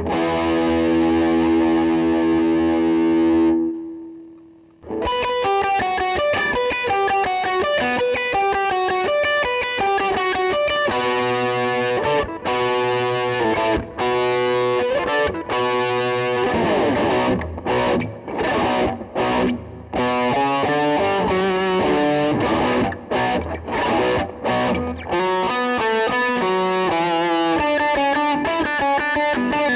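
Electric guitar, a Les Paul Custom–style replica, played through distortion. A held chord rings and dies away about four seconds in. A fast riff follows, with short stop-and-go breaks in its second half.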